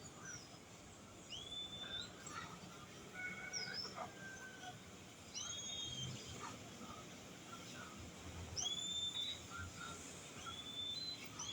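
Small birds calling: short high whistled notes that sweep up and then hold level, repeated every second or two, with a few lower chirps between.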